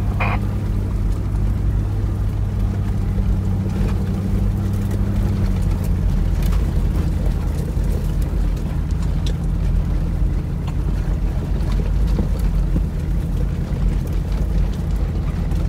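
Cabin noise of a Toyota Land Cruiser 100 driving slowly along a dirt and gravel track: a steady low V8 engine drone over tyre and gravel rumble, with scattered light knocks and rattles.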